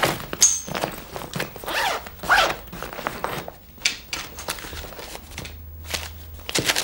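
Short irregular rustles, scrapes and clicks, with a zip-like sound among them, of someone rummaging through their things in search of a paper.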